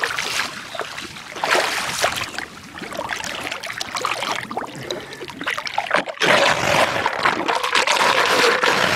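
Floodwater splashing and trickling. It grows louder and steadier about six seconds in.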